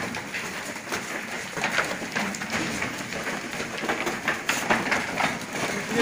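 Goats' hooves knocking and shuffling on a wooden slatted pen floor in an irregular clatter.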